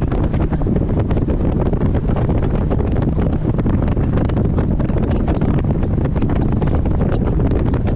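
Wind buffeting the microphone on a moving boat, over the steady noise of the boat under way on the water.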